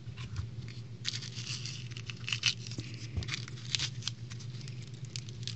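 Irregular crinkling and crackling of a chocolate egg's foil wrapper being handled and peeled off the melted chocolate, over a steady low hum.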